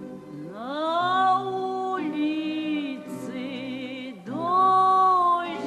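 Music: a singing voice glides up into long held notes, in two phrases with a short break a little after four seconds in, over a steady low drone.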